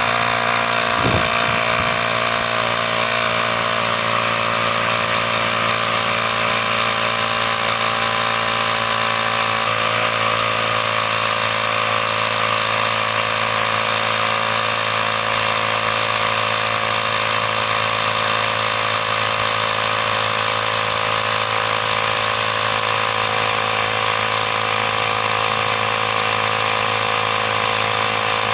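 Ryobi P737D 18V cordless inflator's compressor running steadily under load, pumping air into a tire.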